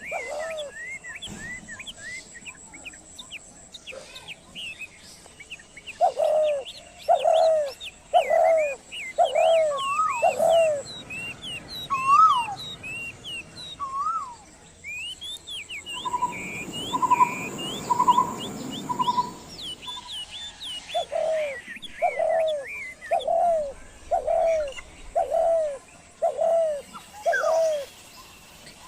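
Birds calling in chorus: one bird repeats a series of low hooting notes, about two a second, twice, while others chirp and twitter at a higher pitch throughout. Around the middle a short run of evenly spaced notes plays over a brief hiss.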